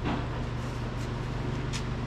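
Steady low background hum of room noise, with a few faint clicks.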